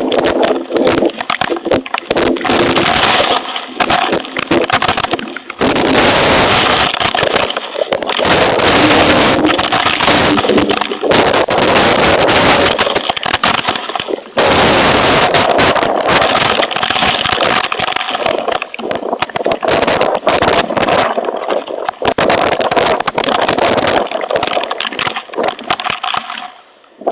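Hail pelting down hard on a hail protector: a dense, continuous clatter of countless impacts, easing briefly a few times, then cutting off suddenly at the end.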